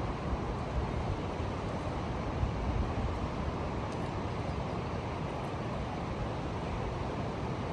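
Fast river current rushing steadily, with a few louder low swells of wind buffeting the microphone a few seconds in.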